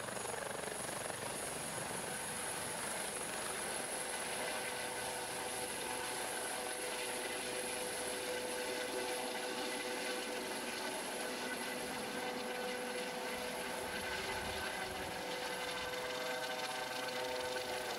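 Rescue helicopter lifting off and climbing away overhead: a steady turbine whine with a high-pitched tone over the rush of the rotor.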